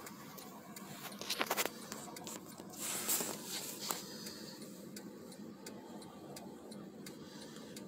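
Faint clicks and rustles of a phone being handled, over a low, steady background hiss.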